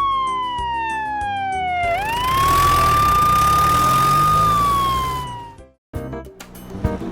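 A siren wailing slowly down, sweeping back up, holding and falling again, over background music. It cuts off sharply about two-thirds of the way through, and after a brief silence a different piece of music starts.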